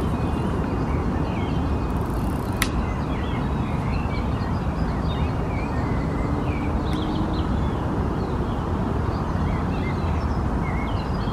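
Small birds chirping on and off over a steady low background rumble, with one sharp click about two and a half seconds in.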